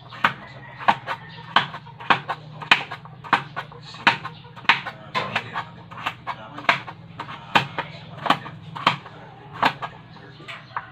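Large kitchen knife chopping kalabasa (squash) into cubes, each stroke a sharp knock of the blade on the cutting board, in a steady rhythm of about two a second.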